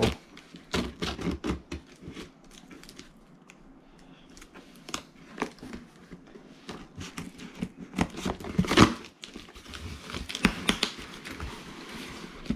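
Packaging being handled and pulled open: irregular crinkling and tearing with scattered sharp knocks, the loudest about nine seconds in.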